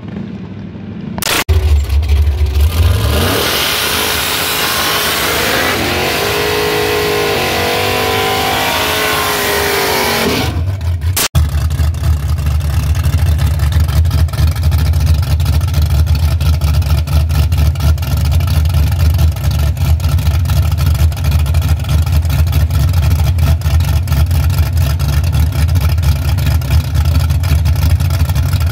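Fox-body Ford Mustang drag car's engine revving hard, rising and falling over a loud hiss. After a break it settles into a steady low idle with a quick even pulse as the car sits at the starting line.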